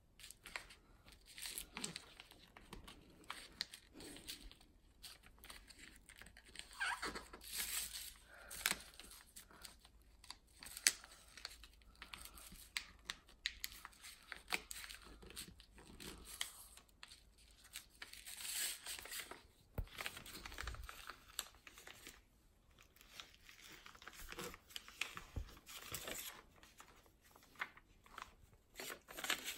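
A sheet of paper being folded and creased by hand into a paper airplane: irregular rustling and crinkling, with short sharp taps as the folds are pressed down.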